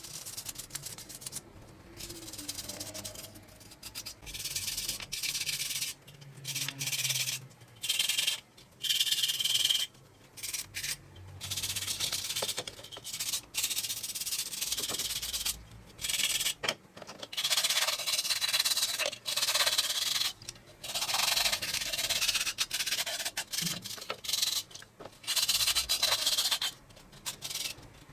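Hand sanding of a rusty metal part: repeated abrasive rubbing strokes, each a fraction of a second to about two seconds long, with short pauses between them.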